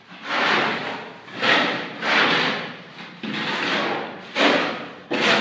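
Repeated scraping strokes, roughly one a second, of a hand tool spreading wet cement mortar over a concrete floor.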